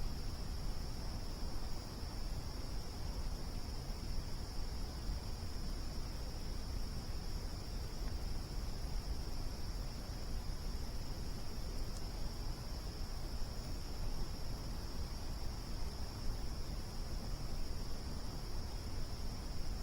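Crickets chirring in a steady, unbroken high drone, over a low steady rumble, likely the campfire burning, with a single faint tick about twelve seconds in.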